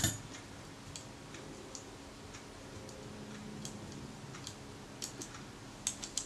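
Pliers set down on a bench mat with a sharp clack at the start, then sparse, faint clicks and ticks of small metal camera parts handled by the fingers as a rewind button, its spring and washer come off.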